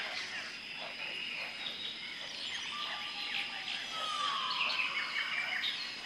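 Tropical rainforest ambience: many birds chirping and whistling over a steady high insect drone, with one descending whistle about four seconds in.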